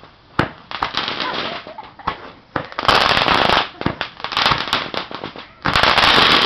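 Roman candles firing: sharp pops and crackling, with loud hissing bursts about three seconds in and again near the end.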